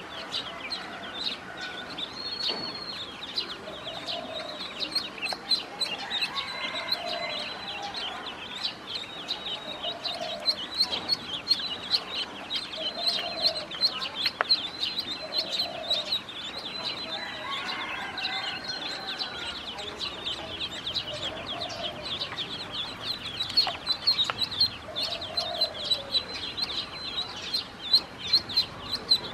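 A group of ducklings peeping constantly, many high chirps overlapping, with a lower call repeating about every two seconds.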